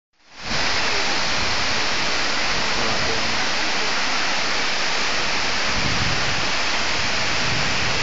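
Bisheh Waterfall's many streams cascading down a cliff into a pool: a steady rush of falling water.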